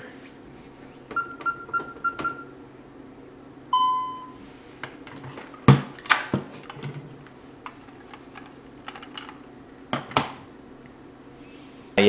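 Four short electronic beeps from the security-system keypad as the reset code is keyed in, then one longer, lower beep of about half a second. After that, a few sharp plastic clicks and knocks as the System Sensor i3 smoke detector head is twisted off its mounting base.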